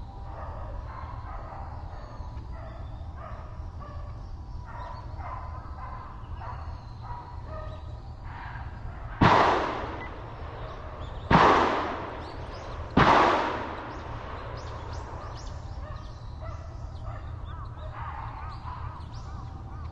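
Three gunshots from a hunter's gun, about two seconds and then a second and a half apart, each sharp crack ringing on briefly after it. A wild boar held at bay by hunting dogs is being shot, and the last shot is the finishing shot.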